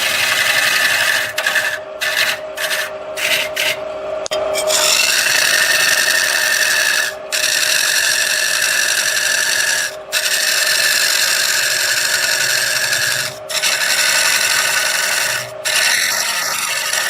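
Turning tool scraping and cutting into wood spinning on a lathe, over the steady hum of the lathe motor. The cutting comes in several short strokes early on, then in long continuous passes broken by brief pauses.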